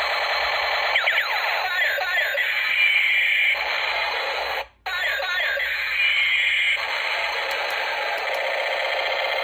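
Electronic sound effects from a battery-powered toy gun's small tinny speaker: repeating sweeping zaps and warbling tones. The sound cuts out briefly near the middle.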